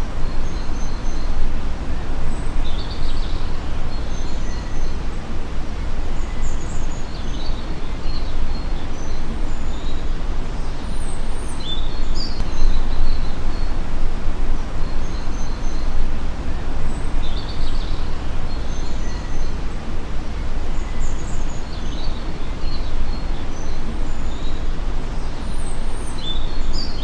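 Steady outdoor ambience: an even, low rumble of background noise with scattered short, high bird chirps.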